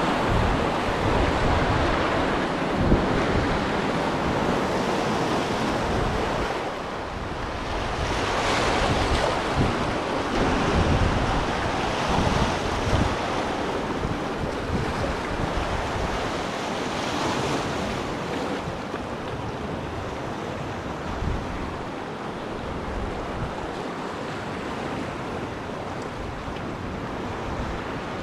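Sea surf washing and breaking over a rocky shore, rising and falling with a few louder surges, with wind buffeting the microphone.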